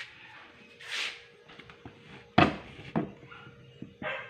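Clicks and knocks from a broken doorknob being handled on a door. The sharpest click comes about two and a half seconds in, and another follows half a second later, after a brief rustle about a second in. A faint steady hum runs underneath.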